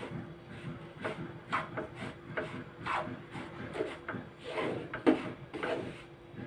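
Wooden spatula scraping and stirring gram flour roasting in ghee in a nonstick pan, about two rasping strokes a second. The flour is still dry and crumbly and not yet fully roasted.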